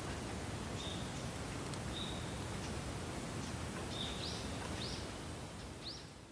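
A small bird gives short, high calls: a few brief even notes, then three quick upward-sweeping notes near the end. Under them is a steady outdoor hush, and everything fades out at the very end.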